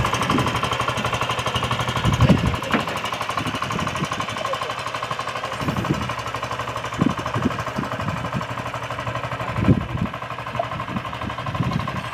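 Long-tail boat's unmuffled engine running steadily at speed, a fast rattling drone, with a few low thuds along the way.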